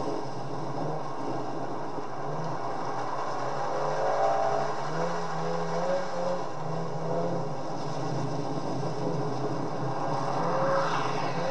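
Nissan 350Z's 3.5-litre V6 revving up and down as the car drifts through corners, over a steady rush of wind and road noise; the revs climb noticeably twice, about four seconds in and near the end.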